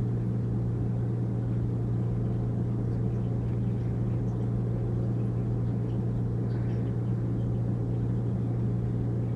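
Steady low background hum of a shop interior, even throughout, with no voices over it.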